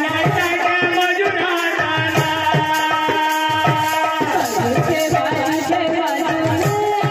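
Live kirtan music: a khol drum beating with bending bass strokes and manjira hand cymbals striking a steady beat, under a sustained melody with singing.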